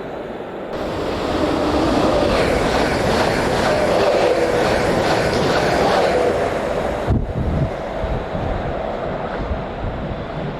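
A train running past on the tracks: a loud rolling rush of wheels on rail that swells about two seconds in, then changes suddenly about seven seconds in to a lower rumble.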